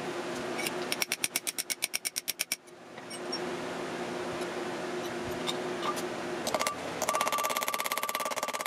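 A steady mechanical hum, with a rapid run of light taps about a second in, lasting about a second and a half. Percussive music comes in about seven seconds in.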